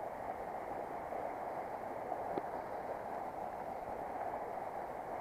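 Steady rush of river water pouring over a small stone weir, with a single brief click about halfway through.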